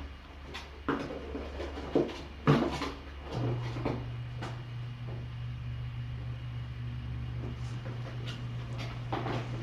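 Kittens knocking and bumping about in a cardboard box as they play, a few sharp knocks in the first three seconds and lighter clicks after, over a steady low hum.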